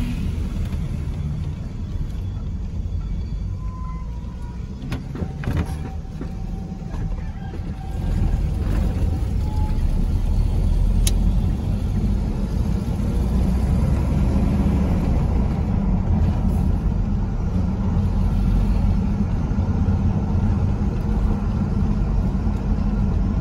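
Car being driven, heard from inside the cabin: a steady low rumble of engine and road noise that grows louder about eight seconds in.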